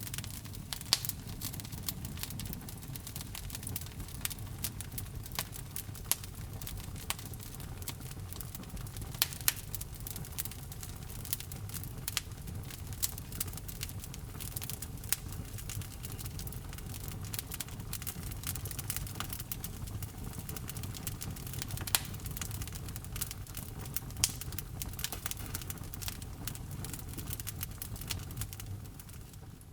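Wood fire in a fireplace crackling, with frequent sharp snaps and a few louder pops over a low, steady rumble of flames. The sound begins to fade out at the very end.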